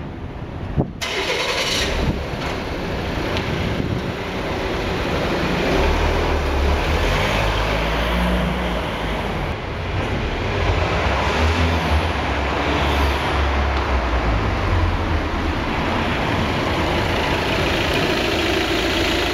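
A car engine starts about a second in and keeps running, its low rumble swelling and easing from time to time.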